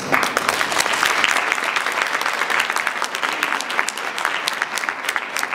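Audience applauding, breaking out suddenly as a choir's singing ends and going on steadily as dense clapping.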